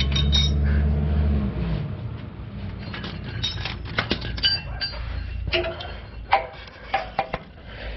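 Metal hand tools clinking and tapping in irregular sharp clinks while a wrench works on a truck's O2 sensors. A low steady hum stops about a second and a half in.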